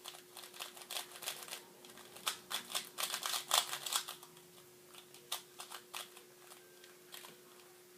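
Plastic 3x3 speedcube being turned in the hands: a quick run of clicking and clacking layer turns, busiest a few seconds in and then thinning out to a few scattered clicks.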